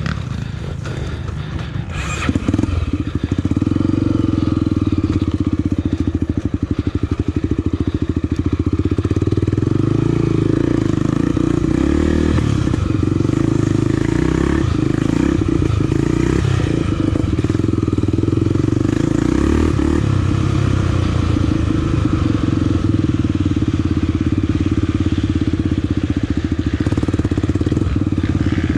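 Honda Tornado 300 single-cylinder trail motorcycle being ridden, its engine running steadily under load. The engine gets louder about two seconds in.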